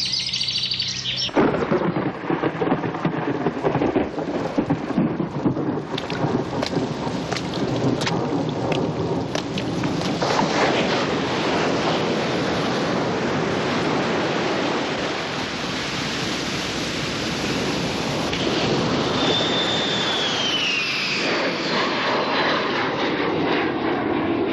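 Thunderstorm sound effect: sharp thunder cracks and rumbling over steady heavy rain, with the cracks thickest in the first half. A short falling whistle-like tone sounds about two-thirds of the way through.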